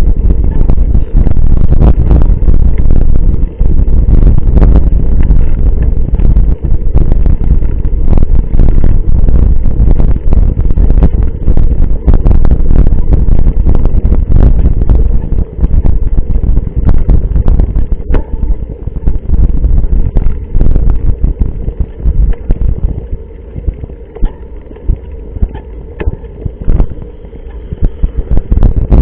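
Wind buffeting an action camera's microphone on a moving mountain bike, a loud low rumble broken by frequent knocks and rattles from the bike over rough ground. It gets quieter and choppier in the last several seconds.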